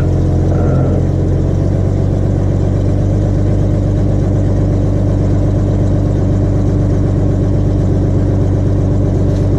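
Jeep Grand Cherokee 4.0 straight-six engine idling steadily at an even speed, running cold in freezing weather not long after being started.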